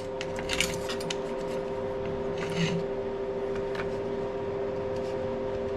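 Steady hum of a machine or fan, with a few light clicks of small tools being handled in the first second and a brief scratch about two and a half seconds in.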